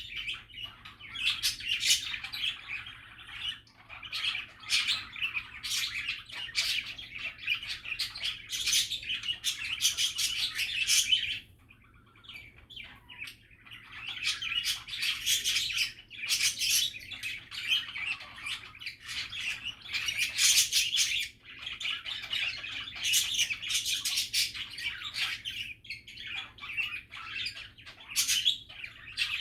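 Budgerigars chattering and warbling: a busy, continuous stream of chirps, squeaks and clicks, with a short lull about twelve seconds in.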